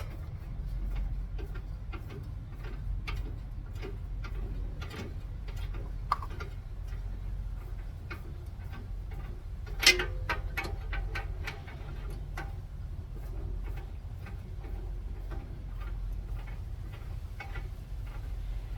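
Hand ratchet wrench clicking in short runs as nuts on the truck's steering linkage are tightened, with one sharp metallic clank about ten seconds in.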